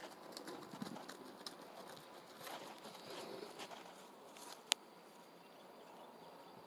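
Faint, soft, irregular hoofbeats of a horse trotting on grass, with one sharp click about two-thirds of the way through.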